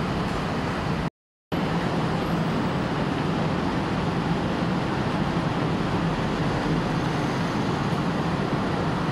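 Steady traffic noise from a congested street of slow-moving cars, vans and motorcycles: a continuous rumble of engines and road noise. The audio cuts out completely for a split second about a second in.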